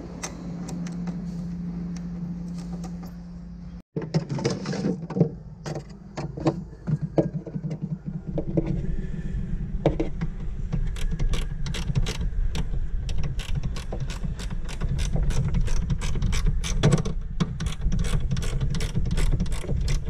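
Metal hardware being handled and tightened: a steady low hum, then after a sudden break scattered knocks and clicks. About halfway through, a long run of quick, even clicks begins, several a second, as the ratchet's mounting bolt is turned down with a T-handle Allen key and spanner.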